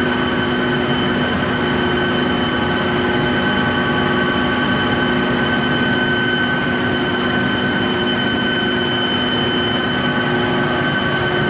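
Steady, loud drone of running chiller plant machinery: a dense rumble with several fixed whining tones that hold unchanged throughout.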